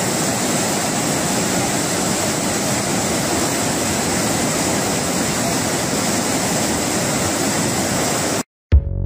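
Muddy flash-flood water rushing and pouring over an eroded earth bank, a steady, loud wash of noise. It cuts off suddenly near the end, and electronic music with a regular beat starts.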